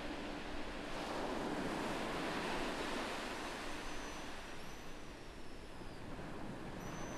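Recorded ocean surf washing steadily on a beach. The faint low hum of a meditation bell dies away over the first few seconds, and faint, thin, high whistles glide in later.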